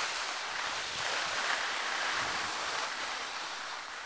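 Skis sliding over snow: a steady hiss of ski bases and edges on packed snow.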